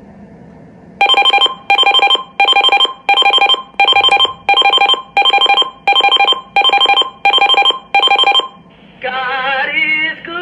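Uniden Bearcat BC370CRS scanner clock radio sounding its alert through its speaker: eleven short bursts of rapidly pulsing electronic beeps, about one and a half a second, after a second of faint radio hiss. Near the end the beeping stops and FM radio music with singing comes on.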